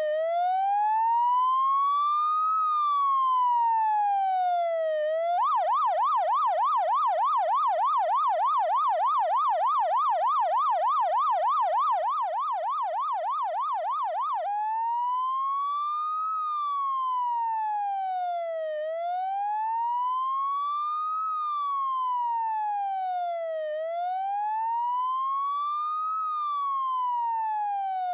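Electronic emergency-vehicle siren in wail mode, slowly rising and falling about every five seconds. About five seconds in it switches to a fast yelp of about three sweeps a second, then returns to the slow wail near the middle.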